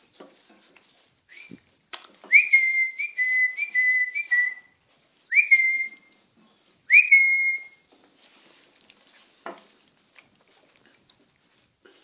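A person whistling: a quick run of five short notes, then two single, longer ones, each a sharp upward slide that levels off into a steady tone.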